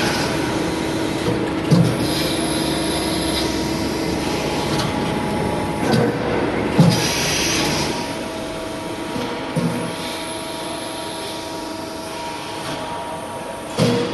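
Trumpf Trumabend CNC press brake running: a steady mechanical drone with faint whining tones, broken by a few short thumps.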